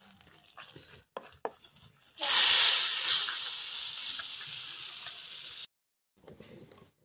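A wooden spatula scraping and tapping in an iron wok, then about two seconds in a sudden loud sizzle as the hot oil tempering with dried red chillies is poured onto the cooked leafy greens. The sizzle fades slowly and cuts off suddenly.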